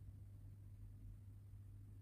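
Near silence: a faint steady low hum.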